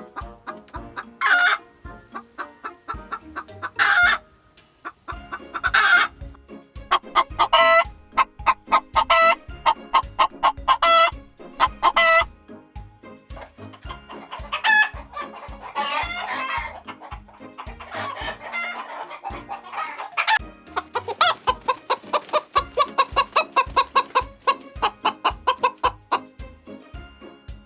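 Chickens and roosters calling: loud clucks and squawks every second or two with rooster crowing, then a long run of rapid clucking in the second half. A steady low beat runs underneath throughout.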